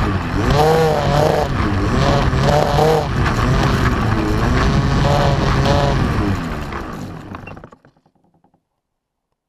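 RC model plane's engine running close to the onboard camera as the plane rolls across grass, its pitch rising and falling several times with the throttle. It fades and stops about eight seconds in.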